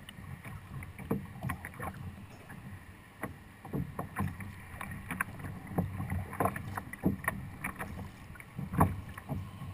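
Choppy water slapping against the plastic hull of a Hobie Outback fishing kayak in irregular knocks and splashes over a low rumble of wind on the microphone, with one sharper knock near the end.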